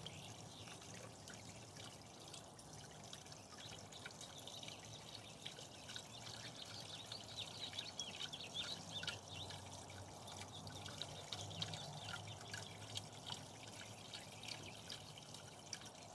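Faint, steady trickle of water with many small drips and splashes.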